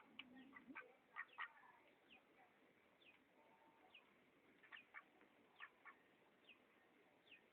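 Faint, short, high duck calls repeated irregularly, each one dropping quickly in pitch, with a louder pair about a second in.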